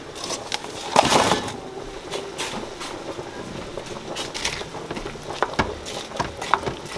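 Light kitchen handling sounds: a short rustling knock about a second in, then a wooden spoon clicking and scraping against a Rival Crock-Pot's stoneware crock as onion slices and beef are pressed down into the juices near the end.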